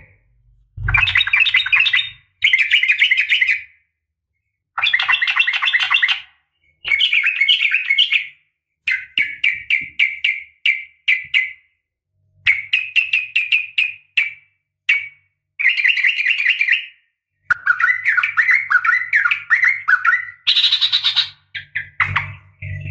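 Yellow-vented bulbul (trucukan) calling in repeated bursts of bubbly, chattering phrases, each one to two seconds long, with short silent gaps between. The recording is labelled as a female's call to draw males into answering.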